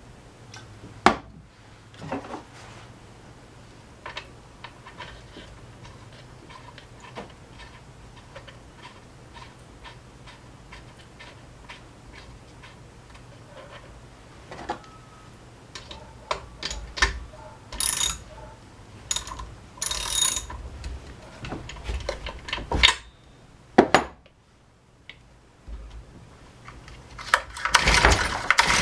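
Hand tools and metal parts being handled during work on a string trimmer: scattered clicks, clinks and knocks, with a sharp knock about a second in and a busier run of clattering in the last third.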